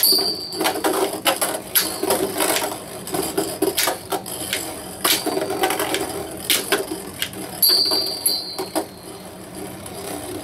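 Two Beyblade spinning tops spinning and clashing in a plastic stadium. There are irregular sharp clicks and knocks as the tops strike each other and the stadium walls, over a steady whir.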